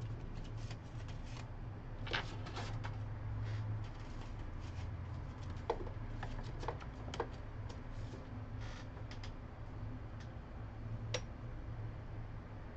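Light, irregular clicks and taps of small tools being handled while a BGA chip is prepared for reballing, over a steady low hum.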